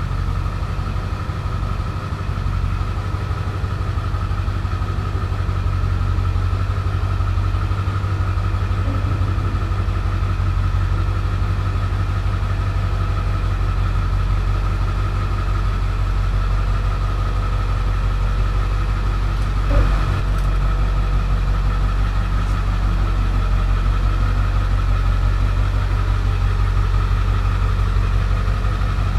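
Ford F-350's diesel V8 running steadily at idle while the pickup creeps backwards, with a steady low hum and a single knock about two-thirds of the way through.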